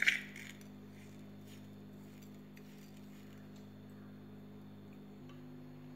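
A metal spoon clinks once against a plate as coconut and sugar are stirred, ringing briefly, followed by a few faint taps over a low steady hum that shifts in pitch about five seconds in.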